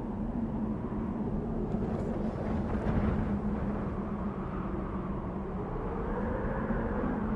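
Desert wind blowing steadily, a low rushing noise with a faint whistle that rises and falls near the end.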